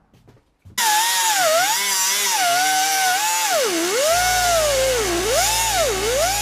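Air-powered cutoff wheel starting up about a second in and cutting a bolt in a fog-lamp bracket: a loud, high whine that drops in pitch each time the wheel bites into the metal and climbs again as it frees up, over a steady hiss.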